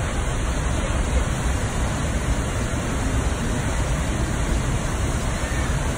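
Minnehaha Falls, a waterfall plunging into its pool, making a steady, unbroken rush of falling water.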